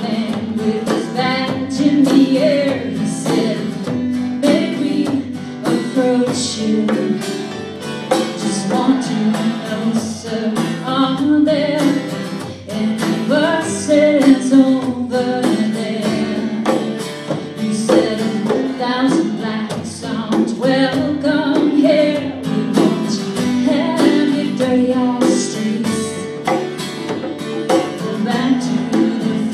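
Live folk song: a woman singing to her strummed acoustic guitar, with a second guitar and a hand drum keeping the beat.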